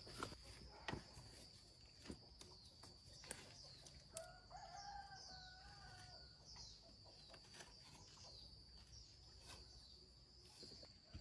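A rooster crowing once, faintly, about four seconds in, over a steady high-pitched tone and a few scattered light knocks.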